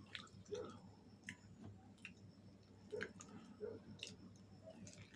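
Fried chicken wings being chewed close to the microphone: soft, irregular mouth clicks and smacks.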